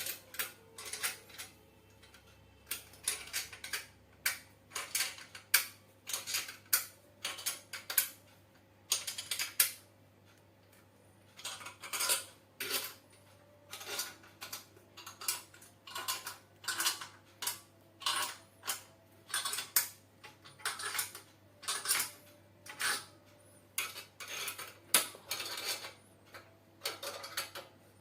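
Metal clinking and rattling of a hand tool on screws and bolts being tightened on a metal grinder frame, in short strokes about one or two a second, with a pause of about two seconds roughly a third of the way in.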